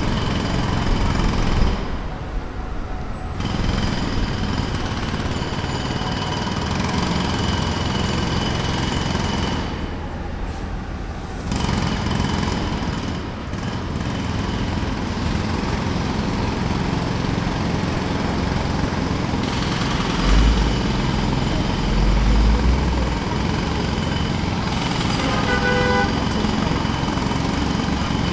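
Pneumatic jackhammer hammering steadily at pavement, stopping briefly twice, with traffic noise behind it.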